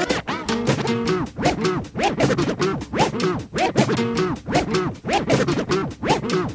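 Music with DJ turntable scratching: quick, repeated swoops up and down in pitch over a beat and held notes.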